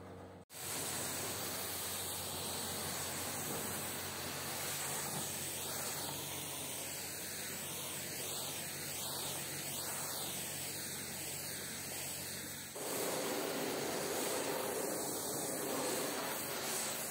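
High-pressure washer jet spraying: a steady hiss that cuts in sharply about half a second in and grows louder and fuller about two-thirds of the way through.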